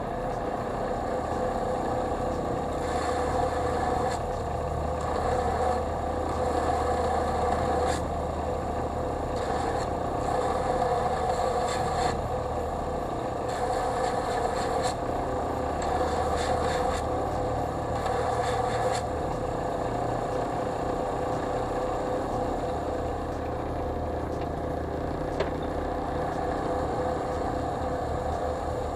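Central Machinery 4 in. x 36 in. belt / 6 in. disc sander running steadily, its motor and belt giving a constant hum, with a few brief scraping sounds along the way.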